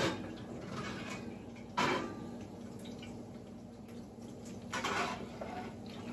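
Bacon sizzling and crackling in a hot stoneware bar pan as it is lifted out of the oven. There are sharp knocks from the pan being handled at the start and just under two seconds in.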